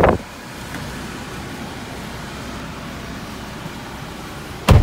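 Steady hum of a Hyundai Solati's 2.5-litre diesel engine idling in neutral with the air-conditioning fan running, heard from inside the cabin. A brief loud thump at the start, and one sharp bang near the end as the driver's door is shut.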